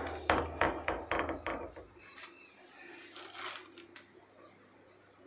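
A rapid series of about eight sharp knocks, roughly four a second, over the first two seconds, then a few fainter clicks.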